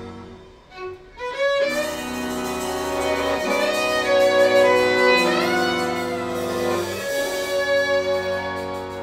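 Klezmer-style swing played by violin, accordion and light percussion. The violin carries the melody over sustained accordion chords, after a short break about a second in.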